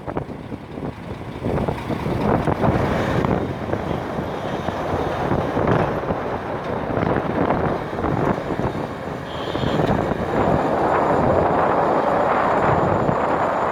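Hitachi 470 excavator's diesel engine running under load with irregular knocks and clatter, growing louder about ten seconds in.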